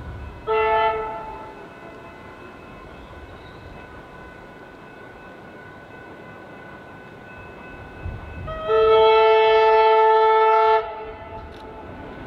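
Horn of an approaching Tait electric suburban train: a short blast just after the start, then one long steady blast of about two seconds about eight and a half seconds in. A low rumble of the train builds near the end.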